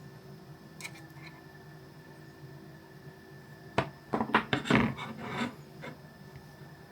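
Handling noise of smartphones being moved on a hard surface: a couple of faint clicks, then a cluster of sharp clicks and scraping rubs for about two seconds, a little past the middle.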